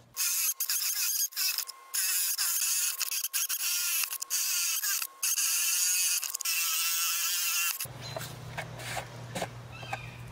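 Sped-up sound of an electric drill with a Forstner bit boring holes through a wooden board, played fast so that it comes out as a high, buzzy whine with short breaks between holes. About eight seconds in, it gives way to a low hum with a few light clicks.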